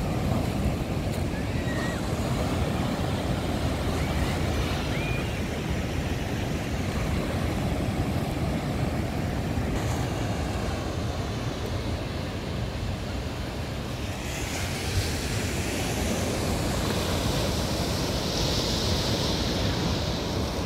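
Atlantic surf breaking and washing over a rocky shore, a steady rushing noise with wind rumbling on the microphone; the surf hiss swells louder near the end. A couple of faint short chirps come in the first few seconds.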